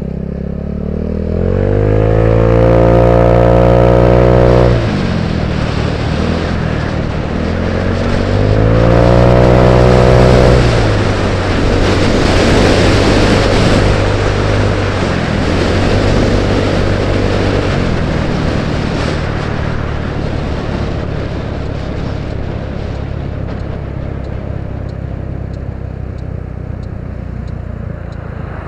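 Genuine Buddy Blackjack 150cc scooter engine accelerating twice. Each time its pitch climbs and then drops back suddenly, and afterwards it settles to a steady cruise. Wind rushes over the helmet-mounted camera, loudest in the middle.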